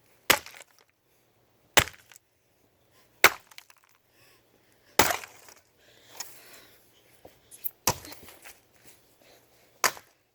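An axe repeatedly smashing an RCA RP4842A plastic alarm clock: six sharp cracking blows about every two seconds, with faint rattling of broken pieces between them.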